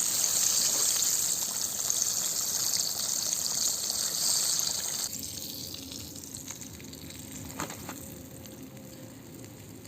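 Chicken pieces deep-frying in hot oil, a steady sizzling hiss that thins out and quietens after about five seconds.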